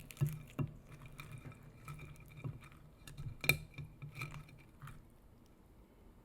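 Clinks of a dish and utensils with small wet, sticky sounds as a fried chicken drumstick is coated in thick hot sauce: a string of light taps, the loudest clink about three and a half seconds in, quieting after about five seconds.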